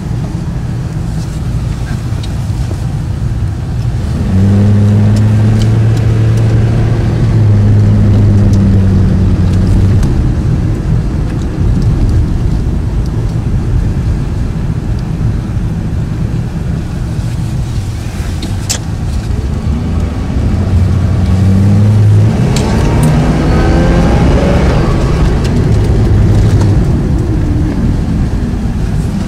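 The supercharged 4.4-litre Northstar V8 of a 2009 Cadillac XLR-V, heard from inside the cabin while driving. It pulls louder under acceleration about five to ten seconds in and again from about twenty seconds in. Near the end its pitch rises with a little supercharger whine under the harder acceleration.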